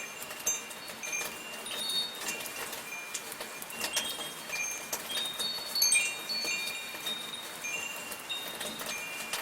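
Wind chimes ringing at irregular moments, with several high tones sounding together about six seconds in, over a steady hiss of light rain.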